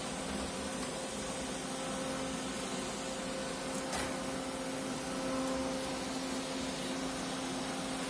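Aldi robot vacuum cleaner running steadily over a tiled floor, a continuous motor and fan hum with its side brushes sweeping. A single short click about halfway through.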